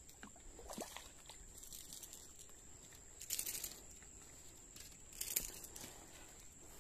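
A steady high-pitched insect drone, with two short rustling, scraping noises about three and five seconds in as a hooked fish is landed on the muddy bank. The second noise is the louder.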